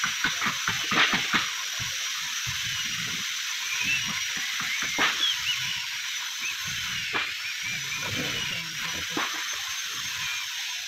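Sharp knocks and taps of a tool on a wooden boat hull: a quick cluster in the first second and a half, then a few single knocks spaced through the rest, over a steady high hiss.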